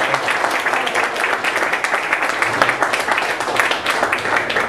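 Audience applauding: dense, steady clapping that tapers off at the end.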